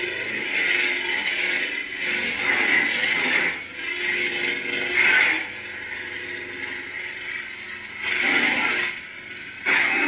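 Sabertrio CFX lightsaber playing the Kyberphonic KSith crossguard sound font: a steady electric hum that swells into four swing sounds as the blade is moved, near the start, around the 3 and 5 second marks, and near the end.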